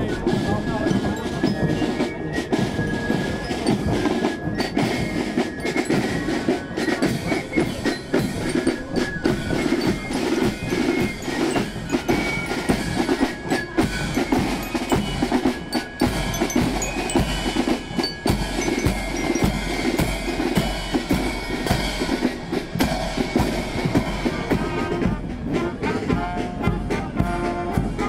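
Marching drum and fife corps playing a march: rapid snare drumming and a bass drum under the ringing high notes of bell lyres and flutes. Near the end a brass band's trombones and saxophones come in.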